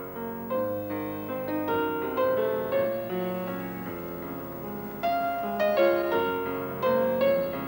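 Piano music from a film score: a melody of struck notes over lower chords, each note fading after it is struck.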